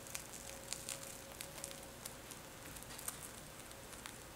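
Crisp golden crust of a baked black-sesame bread roll crackling as hands tear it apart: scattered faint crackles.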